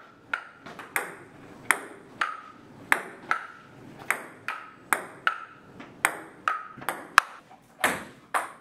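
Table tennis rally: the ball clicks back and forth off the paddles and the table, about two to three hits a second, with a short ring after many of the bounces.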